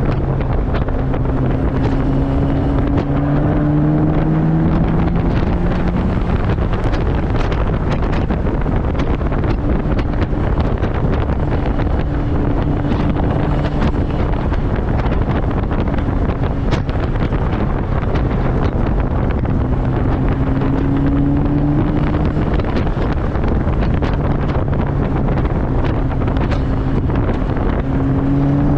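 Turbocharged 1999 Mazda Miata's 1.8-litre four-cylinder engine accelerating hard, its pitch climbing in long pulls about three times. Heard from the open cockpit under heavy wind buffeting on the microphone.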